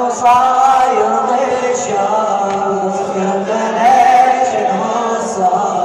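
Male voice singing a slow Shia mourning chant (latmiya) in long, melismatic held notes, backed by layered choir-like voices over a steady low drone.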